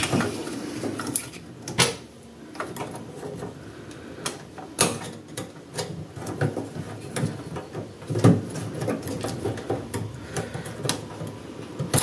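Irregular clicks, taps and knocks of plastic and metal as a microwave oven's door interlock switches and wire connectors are prised off and handled with a screwdriver.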